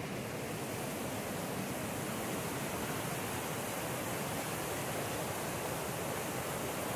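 Whitewater rapids of the Tahquamenon River rushing steadily, an even, unbroken hiss of moving water.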